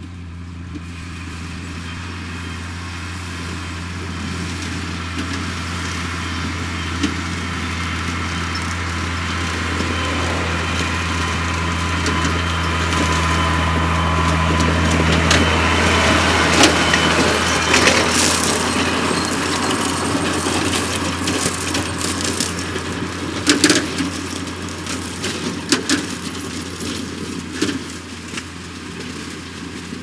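A Case IH tractor's diesel engine pulls a corn-stalk chopper through a stubble field. Its steady drone grows louder as it approaches, peaks as it passes about halfway through, and fades as it moves away. Scattered sharp knocks come as it passes and heads off.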